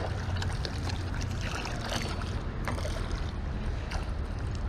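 Wind buffeting the microphone in a steady low rumble, with light splashing from a hooked largemouth bass thrashing at the surface.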